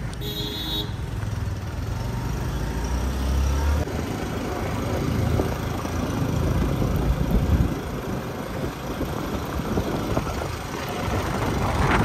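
Wind rushing on the microphone over a two-wheeler's engine and road noise while riding along a mountain road, with a brief beep just after the start.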